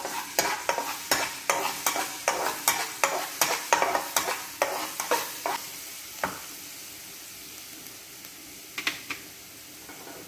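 Metal spatula scraping and tapping against a non-stick frying pan about three times a second while stirring food frying in hot oil, over a steady sizzle. The stirring stops about six seconds in, leaving only the sizzle with a couple of light taps.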